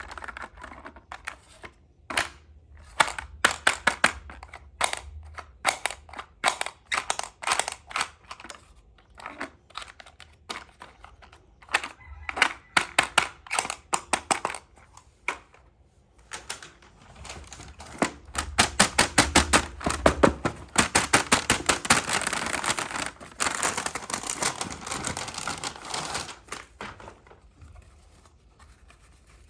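Rapid clicking and tapping of small plastic toy pieces and packaging being handled, with a long, fast run of clicks in the second half that thins out near the end.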